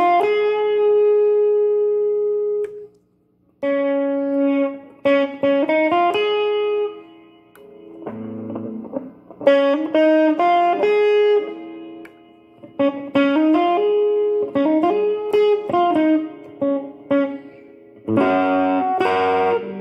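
Swing electric guitar played through a Valeton Dapper Amp Mini pedal into a Fender Champion 20 amp, with the pedal's reverb on. It plays a melody of single sustained and sliding notes, with a short pause about three seconds in, then strummed chords near the end.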